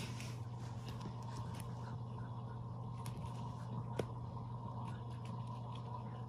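Steady low hum with faint light scrapes and a single sharp click about four seconds in, as a cat pushes at a door standing ajar.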